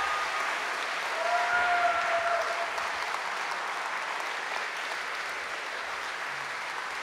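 Concert audience applauding steadily after an acoustic guitar song ends, with a brief whistle about a second in.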